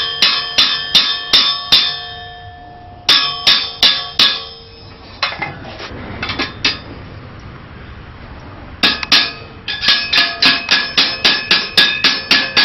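Ball-peen hammer striking a steel rivet, ringing metallic blows at about three a second in several runs with pauses, setting and flattening the rivet; a few lighter taps come in the middle.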